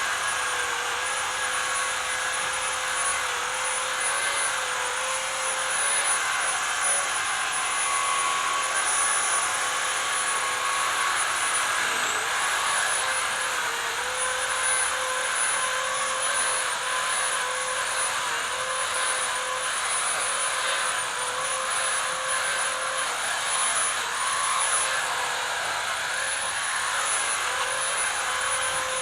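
Two-stroke chainsaw running at full throttle, its high pitch steady but dipping briefly a few times as the chain bites into the wood.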